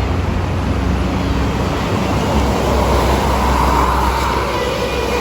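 Toll-road traffic: a steady engine rumble and tyre noise from passing vehicles. One vehicle swells louder as it goes by about three to four seconds in.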